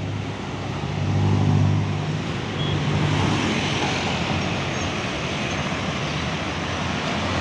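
Rosalia Indah executive-class coach's diesel engine droning as the bus drives past close by, over steady tyre and traffic noise. The engine is loudest about one to two seconds in, then eases as the bus pulls away.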